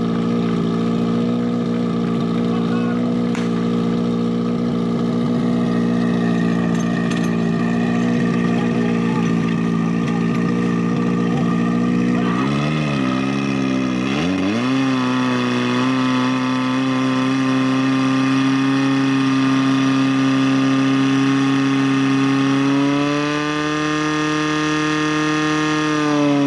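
Portable fire pump engine running steadily. Its pitch dips and climbs back about 13 seconds in, then rises once more near the end.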